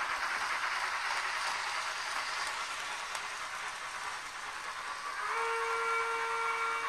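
Model steam locomotive of the Fleischmann class 86 tank engine, its sound playing a steady running hiss. About five seconds in, a steam whistle sounds and is held long.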